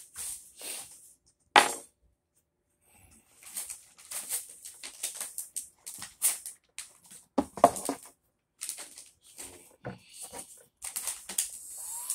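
Vinyl wrap film crinkling and crackling as it is handled and pressed onto a plastic car interior trim piece, with a few sharp snaps. Near the end a heat gun switches on with a steady hiss and a rising whine.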